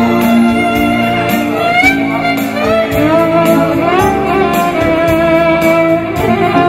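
Violin playing a melody with sliding notes over an electronic keyboard accompaniment with a steady beat.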